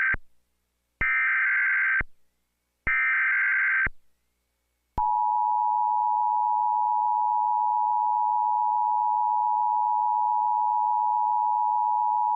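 Emergency Alert System tones: the SAME header's screechy digital data bursts, the first already under way, sound three times about a second apart. About five seconds in, the steady two-tone EAS attention signal starts and holds. Together these tones mark the start of a new alert.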